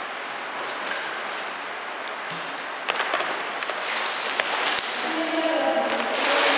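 A steady hiss, then scattered taps and knocks from about three seconds in that grow louder toward the end, joined near the end by a faint pitched sound.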